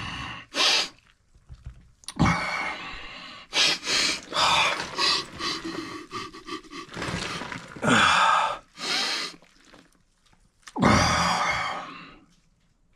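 A person sniffing and gasping in a string of forceful noisy breaths while trying to bring on a sneeze that does not come, with a longer breath near the end.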